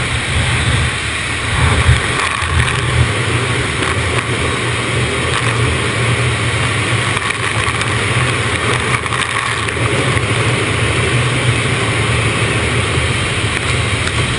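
Car wash machinery running, a steady low rumble with a constant rushing hiss.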